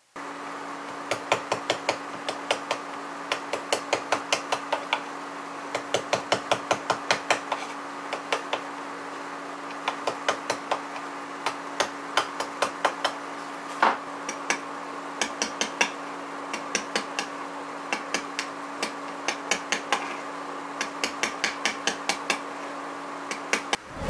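A mallet tapping a carving gouge into a wooden tray, in quick runs of light knocks, about four or five a second, with short pauses between runs; one stronger strike near the middle. A steady low hum runs underneath.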